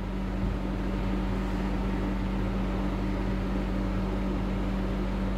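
Steady humming drone with a hiss beneath it, unchanging and with no separate events.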